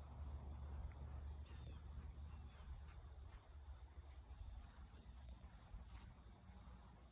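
Faint outdoor insect chorus: a steady high-pitched trilling hum, over a low rumble.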